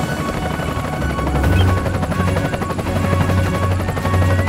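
Background music track with a pulsing, rhythmic bass line that comes in about a second and a half in, with held higher notes over it.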